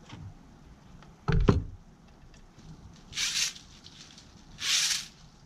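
Hand work under a truck's hood: a sharp double knock about a second and a half in as metal pliers are set down on the battery, then two short rustling, scraping bursts.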